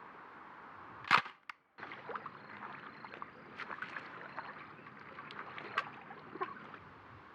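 Snapshot film camera: one loud sharp shutter click about a second in, then, after a brief break in the sound, a run of small irregular clicks and ticks from the camera being handled.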